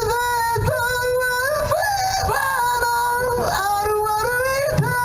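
Music with a high sung vocal line, the voice holding long notes and sliding between them.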